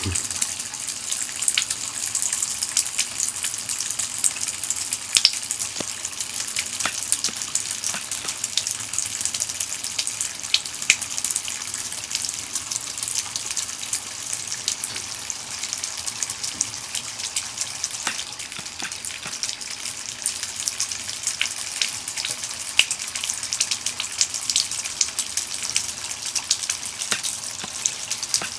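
A thin stream of water running from a bathtub faucet and splashing into the tub: a steady hiss with many small irregular splashing ticks.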